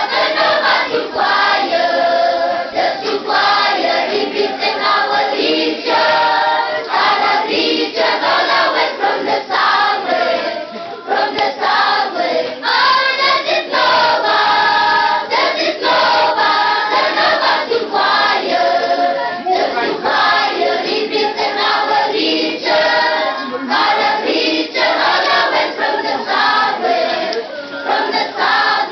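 A large group of schoolchildren singing their school hymn together in English as a choir, continuously and loudly.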